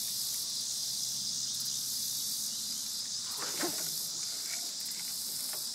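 Steady, high-pitched chorus of summer insects droning without a break. A short indistinct voice sounds about three and a half seconds in.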